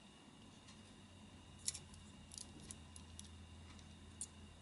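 Faint clicks and taps of hard plastic model-kit parts being handled and pressed together, about six of them, the loudest about one and a half seconds in, over a low steady hum.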